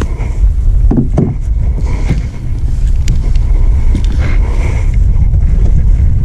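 Wind buffeting the camera's microphone: a heavy, uneven low rumble, with a few light clicks and rustles of rod and gear being handled.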